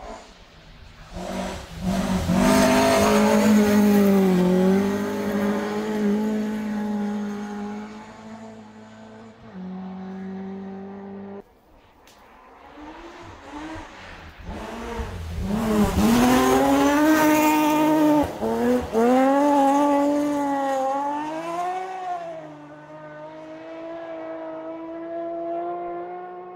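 Rally cars at full stage speed on a gravel road, in two separate passes: the first comes in about two seconds in and is cut off suddenly about halfway through, and the second builds from about fourteen seconds in and fades near the end. In each pass the engine's pitch rises and falls sharply as the driver revs it and changes gear through the bends.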